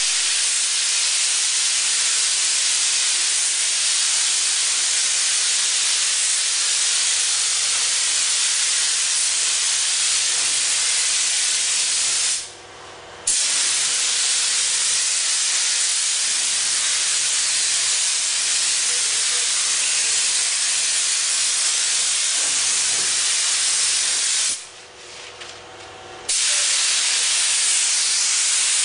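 Gravity-feed paint spray gun hissing steadily as it sprays paint, the hiss cutting off briefly about twelve seconds in and again for under two seconds near the end as the trigger is let go. A faint steady hum runs underneath.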